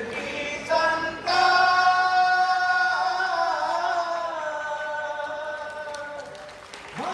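Voices singing a Hindi patriotic song in unison, with a short note and then one long held note from about a second in that sags slightly in pitch and fades near the end.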